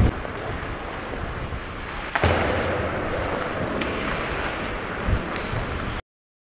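Hockey practice on ice heard through a body-worn action camera's microphone: a steady rushing noise of skating and air over the microphone, broken by sharp knocks about two seconds in and again near five seconds. The sound cuts off about six seconds in.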